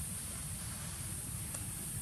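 Steady outdoor background noise: a low rumble with a constant high hiss above it, and a single faint click about one and a half seconds in.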